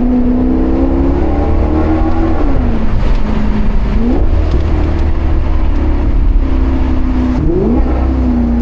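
Maserati GranCabrio's Ferrari-derived 4.7-litre V8 running under way, heard from the driver's seat. The engine note holds steady, falls about two and a half seconds in, then climbs sharply in pitch twice, near four seconds and again near eight seconds.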